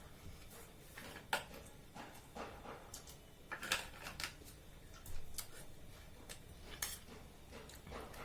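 Someone eating chow mein noodles hurriedly: irregular wet chewing and lip-smacking clicks, a few in quick pairs.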